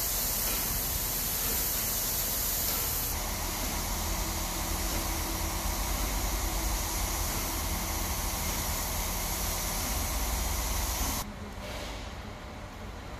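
Steady hiss of steam escaping low at the front of Ol49-59, a Polish 2-6-2 steam locomotive standing with its train. The hiss cuts off suddenly near the end, leaving a quieter background.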